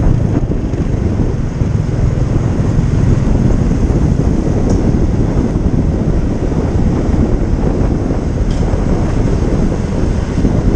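Steady wind rush on the microphone over the running noise of a motor scooter being ridden along a road.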